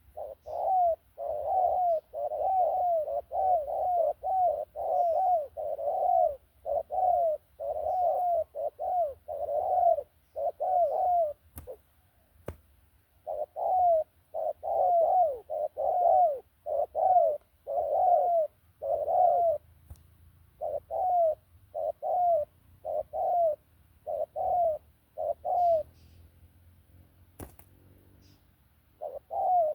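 A dove cooing in long runs of short, repeated coos, about two a second, with two brief pauses; a few faint clicks fall in the pauses.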